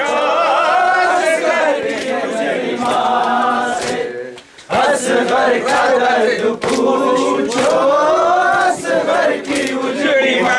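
Men's voices singing a Muharram lament (noha) together, with sharp slaps of hands on bare chests (matam) among the phrases. The singing breaks off briefly about halfway, then starts again.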